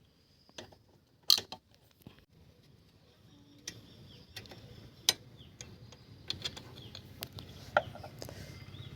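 Scattered metal clicks and taps as pliers work the retaining pin out of a motorcycle's rear disc-brake caliper, the loudest about a second in.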